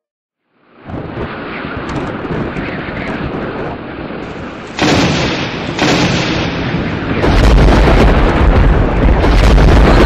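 Storm-at-sea sound effect: heavy wind and waves starting about a second in, then growing louder in steps, with a deep rumble joining about seven seconds in.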